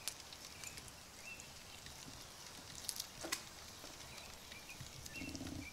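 Faint handling noise as cooked bacon strips are picked up and folded on a wooden cutting board, with a few soft clicks, the sharpest about three seconds in.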